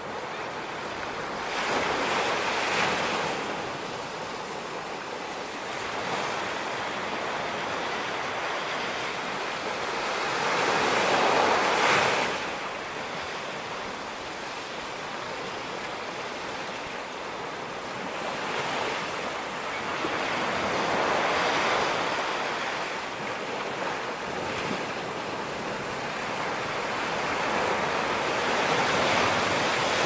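Small sea waves breaking and washing up onto sand and coral rocks in a steady wash that swells every few seconds, about six times, the loudest surge about ten seconds in.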